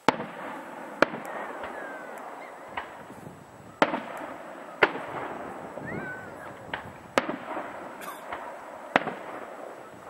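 Fireworks display: several sharp bangs of bursting shells, one every second or two, over a continuous crackle.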